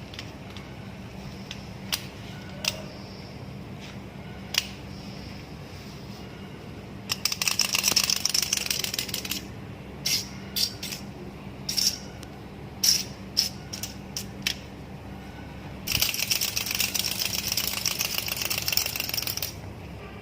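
A small plastic toy clicking and rattling as a kitten plays with it: scattered single clicks, then two stretches of dense fast rattling with a burst of clicks between them, over a steady low hum.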